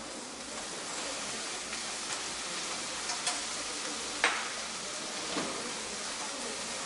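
Dried sardines (niboshi) left over from making dashi sizzling steadily as they fry in a pan, with a few sharp clicks of a utensil against the pan, the loudest about four seconds in.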